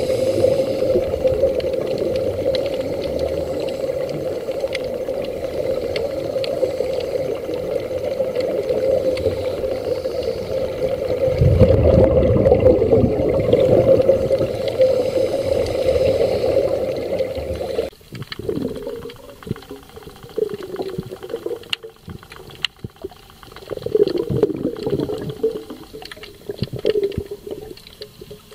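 Underwater sound picked up by a diving camera: a steady rushing of water for about eighteen seconds, then after a sudden change, irregular swelling bursts of bubbling and water movement.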